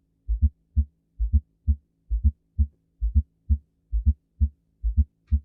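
Recorded heart sounds with a fourth heart sound (atrial gallop): each beat is a close pair of low thuds, the extra sound just before S1, followed by a single S2, about 66 beats a minute. An S4 like this is not a normal finding and is usually due to diastolic heart failure from a hypertrophied heart. A faint steady hum lies underneath.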